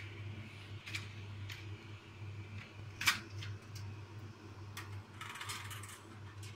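Light clicks and knocks of cookware being handled at the stove, one sharper click about three seconds in and a short rustling hiss a little after five seconds, over a steady low hum.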